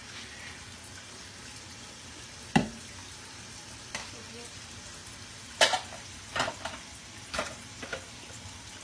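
A steady hiss with a sharp knock about two and a half seconds in, then a run of short clicks and clatters between about five and a half and eight seconds.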